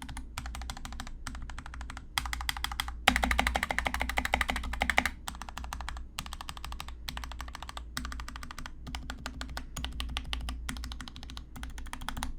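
Typing on a GK61 mechanical keyboard with Gateron Black linear switches: a steady run of keystrokes, with a louder, faster flurry of key presses about three to five seconds in.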